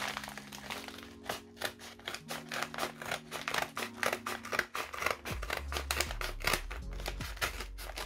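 Scissors snipping through the edge of a paper mailer and the paper crinkling as it is pulled open, over background music; a deep bass comes into the music about five seconds in.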